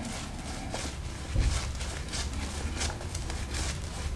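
Silvertip badger shaving brush (Zenith 502) working a thick shaving-cream lather on the face, making a run of soft, irregular wet clicks and swishes, several a second.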